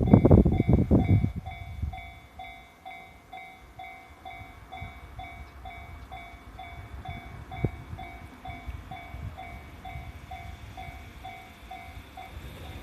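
Japanese level-crossing warning bell ringing in an even, rapid repeating pattern. A loud low rumble fills the first second or so and dies away.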